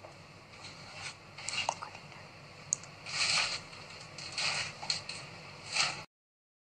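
A few faint, soft rustling noises close to a phone's microphone, about five scattered over several seconds. The sound cuts off abruptly about a second before the end.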